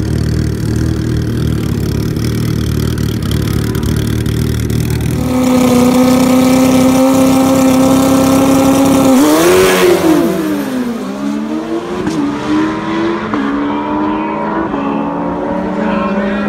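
Drag-racing motorcycles, a turbocharged Suzuki Hayabusa real street bike among them, rumble low, then hold a steady high engine note for about four seconds. They are loudest as they launch, the pitch swooping down and up as they pass, then climbing in steps through the gears as they pull away down the track.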